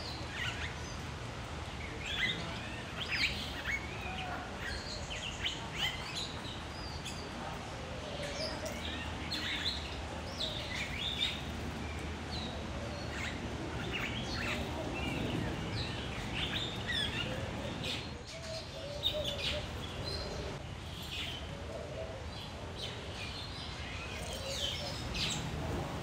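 Many African aviary birds chirping and calling in short, overlapping high notes over the steady rush of a waterfall.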